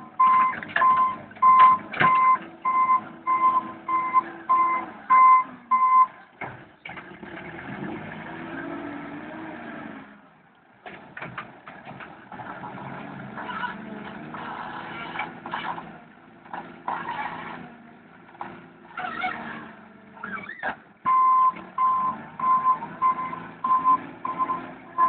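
Volvo BL71 backhoe loader's reverse alarm beeping steadily about twice a second as the machine backs up, stopping after about six seconds. Its diesel engine then revs and works under load while the front bucket is pushed into a dirt pile, with a few knocks. The reverse alarm starts beeping again near the end as it backs out.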